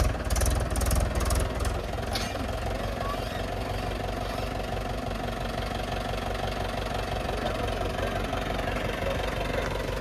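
Mahindra 475 DI tractor's diesel engine running steadily as it pulls a tine cultivator through the soil. Over the first two seconds a louder low rumble comes with a rhythmic clicking about three times a second, which stops about two seconds in, leaving the even engine drone.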